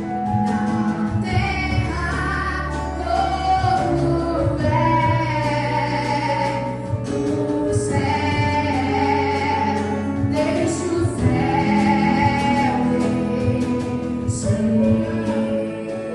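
Gospel song with several voices singing held, slow notes over a sustained low accompaniment.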